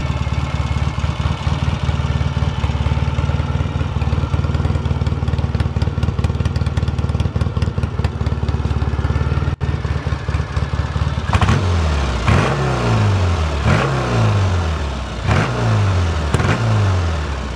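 A 1975 Norton Commando 850's air-cooled parallel-twin engine idles steadily. From about eleven seconds in it is revved in about five quick throttle blips, each rising and then falling back to idle.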